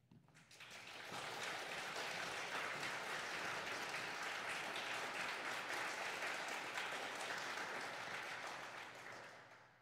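Audience applauding, building up within the first second, holding steady, then dying away near the end.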